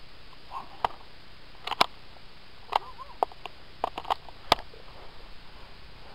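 Scattered single sharp snaps of airsoft fire, about six at irregular intervals, with the loudest about halfway through.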